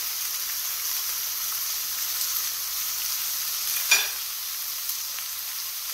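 Rib steak and sliced garlic sizzling steadily in a hot cast-iron skillet, with one short clink about four seconds in.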